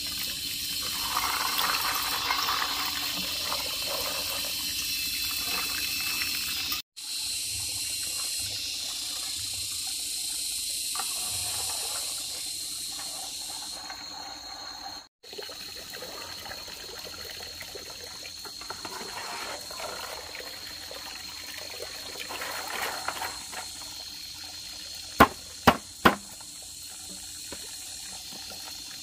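Water running and splashing, with three sharp knocks in quick succession near the end.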